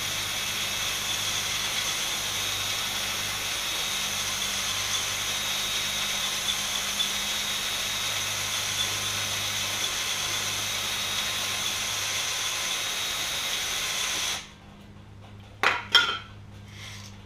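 Cordless drill spinning a paddle hone with new stones inside an engine cylinder bore at modest speed, a steady whirring hiss of the stones on the cylinder wall as it is lightly honed for crosshatch. The drill cuts off suddenly about fourteen seconds in, followed by two sharp clacks as the spray can is set down on the block.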